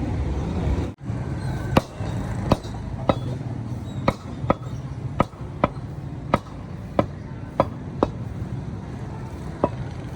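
Butcher's cleaver chopping beef: a steady run of about a dozen sharp strikes, roughly one every half second or so, over a low background hum.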